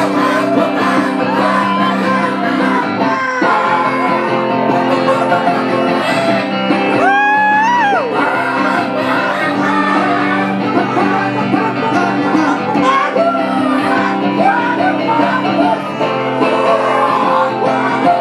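A live rock band playing through a PA, with electric guitar and amplified singing. About seven seconds in, one loud held note rises slightly and then slides down.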